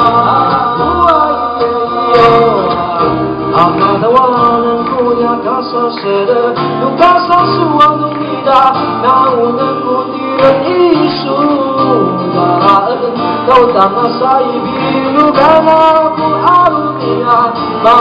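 Live acoustic band performance: male voices singing a melody over a strummed acoustic guitar and a double bass playing sustained low notes.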